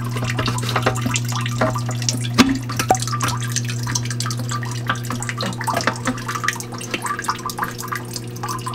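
Aquarium water dripping and splashing in many irregular small drops, over a steady low hum.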